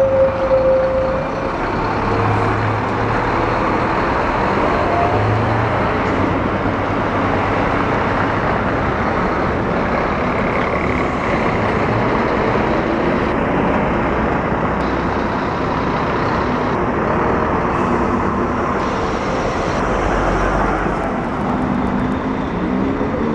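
Diesel engine of a Scania-chassised Modasa Zeus double-decker coach running as the coach moves slowly, a steady low drone. A steady high squeal fades out about a second in.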